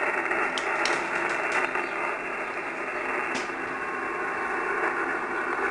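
HF transceiver receiving single-sideband on the 17-metre band, giving out a steady hiss of band noise through its speaker. The audio is cut off sharply above the SSB filter's passband, and signals are low.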